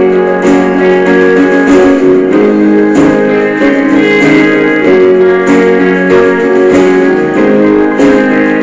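Background music: an instrumental break in a song, guitar playing a steady strummed rhythm with no singing.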